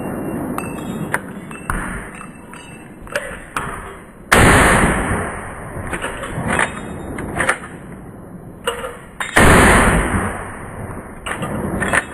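Two rifle shots about five seconds apart, each sudden and loud with a tail that dies away over about a second. Lighter sharp clicks and clinks come between them.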